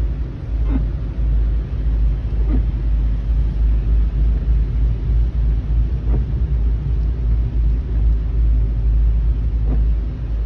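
Road noise inside a moving car: a steady low rumble, with a few faint brief ticks.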